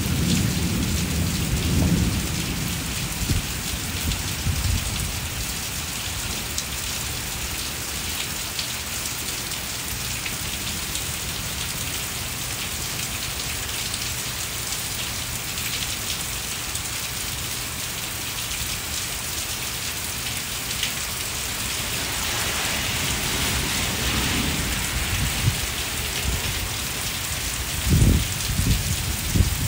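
Heavy rain falling steadily on a brick patio and garden plants, pattering and splashing, growing a little heavier later on. A low rumble of thunder dies away in the first few seconds, and a few low thumps come near the end.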